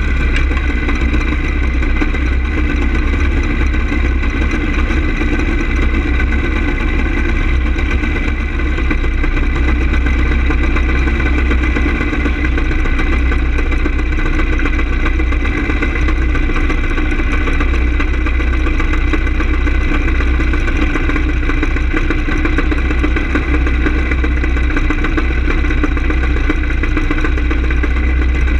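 Small go-kart engine idling steadily while the kart sits still, heard from a camera mounted on the kart's frame, with a heavy low rumble throughout.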